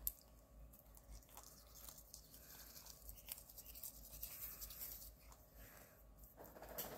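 Faint scrubbing of a small pet toothbrush on a cat's teeth, with soft scattered clicks. There is a sharp click at the very start, and the rustling grows louder near the end.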